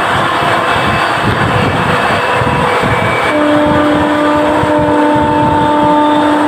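Two passenger trains running side by side at speed: a continuous rumble and rattle of wheels on rail, heard from an open coach doorway. A steady droning tone joins about halfway through.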